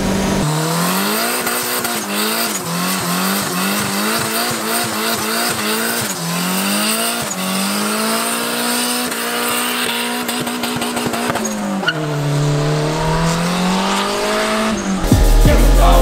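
Honda Civic hatchback doing a burnout: the engine is held high in the revs, its pitch wavering up and down as the spinning tyres squeal, dipping about twelve seconds in and climbing again. Near the end it gives way to a loud, low, heavy sound.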